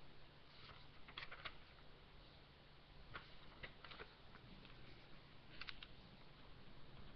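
Near silence: steady room hiss and hum with a few faint, scattered clicks, in pairs and small clusters.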